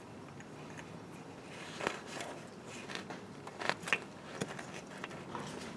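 Faint clicks and light scraping from brass pipe fittings wrapped in Teflon tape being handled and threaded together, a handful of sharp ticks from about two seconds in.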